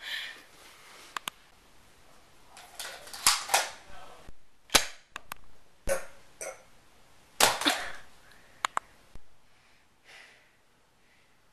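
Toy guns firing in a small room: a scattered series of sharp clicks and short hissing pops at irregular spacing, most of them in the first nine seconds.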